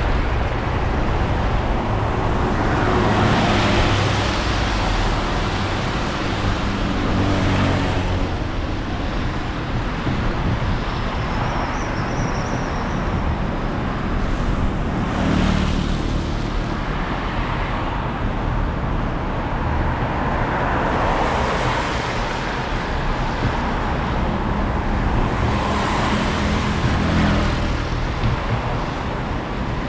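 Street traffic on a rain-wet road: a steady engine rumble with the tyre hiss of cars swelling and fading as they pass, about five times.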